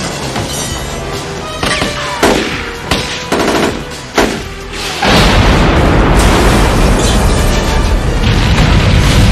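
Action-film soundtrack: a few separate gunshots in the first half, then about halfway through a sudden loud explosion whose rumble carries on to the end, all over the music score.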